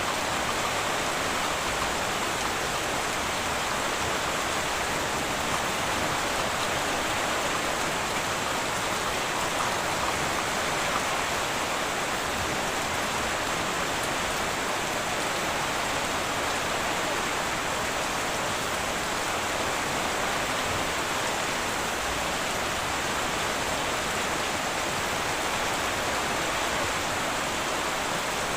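Heavy rain falling steadily on a tin roof: an even, unbroken hiss with no thunder.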